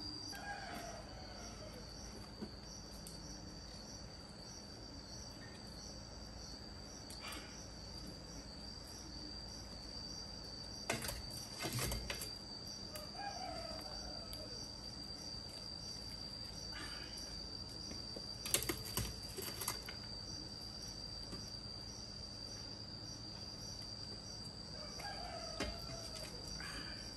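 Insects trill steadily and faintly in a high pitch, while a rooster crows three times, about once every twelve seconds, each crow falling in pitch. A few short knocks come near the middle.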